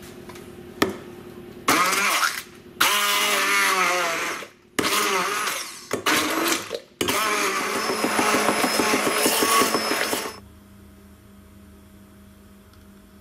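Handheld stick blender pureeing strawberries in buttermilk and yogurt in a glass bowl, switched on in four bursts, the last and longest about three seconds, then switched off about ten seconds in.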